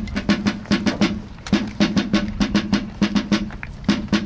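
Military side drum (snare drum) beaten in a quick, uneven rhythm of sharp strokes.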